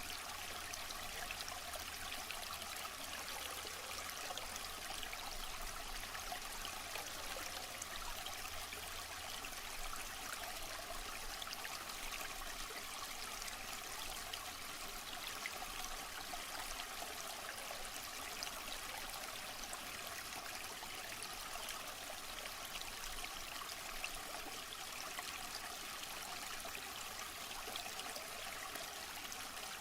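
Steady running water of a waterfall, an even splashing rush with many small bright trickles and splashes and little low rumble.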